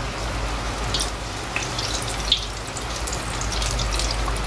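Egg-and-flour-coated potato chops deep-frying in hot oil: a steady sizzle with scattered crackles and one sharper pop about halfway through.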